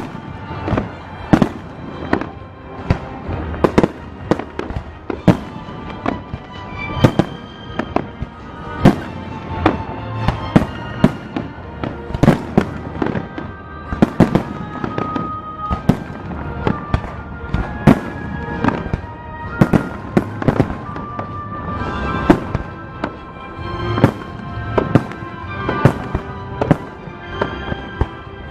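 Aerial firework shells bursting in steady succession, a sharp bang about every second, with music playing underneath.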